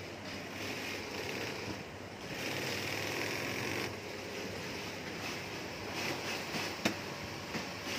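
SunStar industrial lockstitch sewing machine stitching a seam in runs over a steady hiss, louder from about two to four seconds in, with one sharp click about seven seconds in.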